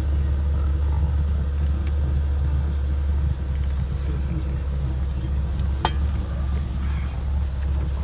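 BMW E38's engine idling, a steady low rumble heard from inside the cabin, with one sharp click about six seconds in.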